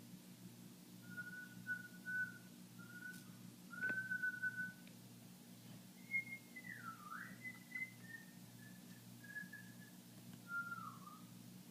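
A person whistling a slow, wandering tune: a few short held notes, then higher notes with swooping dips, over a low steady hum.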